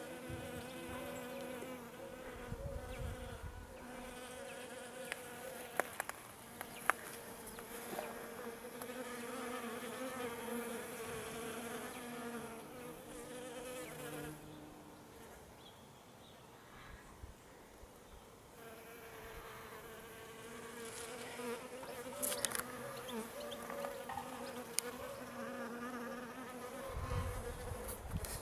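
Flying insects buzzing around flowering rhubarb: a wavering hum that fades for a few seconds in the middle and comes back. A few sharp clicks early on and a low rumble near the end.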